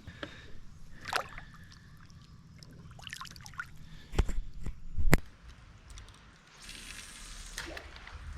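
Water sloshing and splashing around a kayak, with two sharp knocks about a second apart midway and a short hissing splash near the end.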